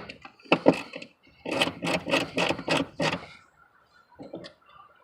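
Ratchet wrench clicking in a quick run of strokes, about four to five clicks a second for a second and a half, as taillight nuts are turned.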